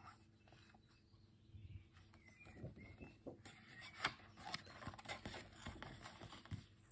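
Faint rustling and soft ticks of a large picture book's paper pages being handled and turned, the sharpest tick about four seconds in.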